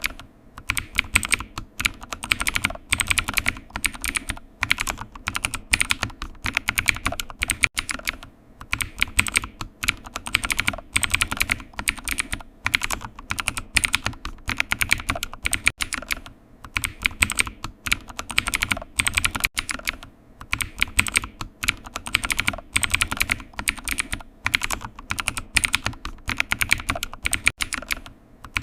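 Typing on a computer keyboard, a rapid run of key clicks that comes in bursts of a few seconds with short pauses between them.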